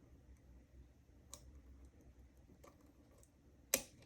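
Faint clicks of a pick and tension wrench working the pins of a Weiser key-in-knob lock cylinder fitted with serrated and spool security pins, with one sharper click near the end as the core gives more movement.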